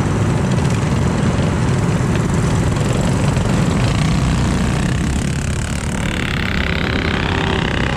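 Small minibike engines running steadily, with a higher, wavering tone joining for the last two seconds.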